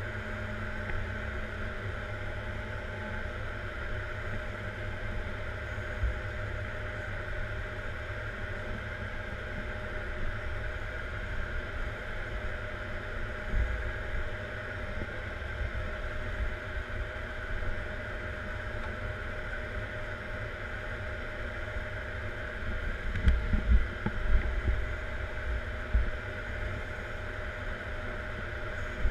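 Caterpillar 140M Series 2 motor grader's diesel engine running steadily under load, heard from inside the cab, with a few low thumps late on.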